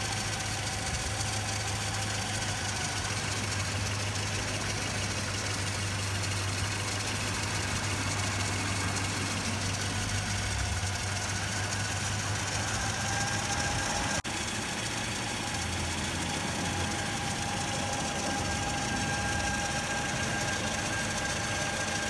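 A 1969 Datsun 1300 pickup's four-cylinder engine idling steadily under the open hood, with a faint steady whine over the low hum. A brief click and dropout comes about fourteen seconds in.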